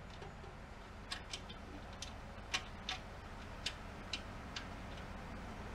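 About eight light, irregularly spaced metal clicks as M8 nuts are threaded by hand onto the bolts of a steel cargo shelf bracket.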